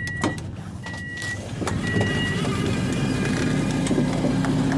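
A Class 221 Voyager train door's alarm beeping three times, about a second apart, with clicks, as the lit Open button is pressed. The power door then opens, letting in louder platform noise and a steady low hum.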